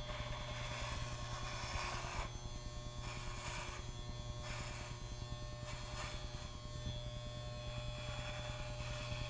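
Electric hair clippers buzzing steadily as they cut a head of hair down to a buzz cut, with a hiss that comes and goes as the blades run through the hair.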